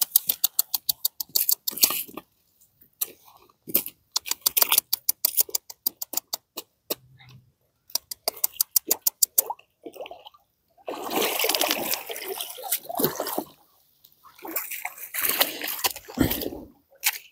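Runs of rapid sharp clicks, then two stretches of water splashing and sloshing at a pond's edge, starting about eleven and fifteen seconds in.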